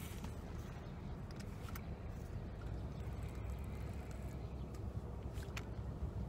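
Wind rumbling steadily on the microphone at the water's edge, with a few faint sharp clicks.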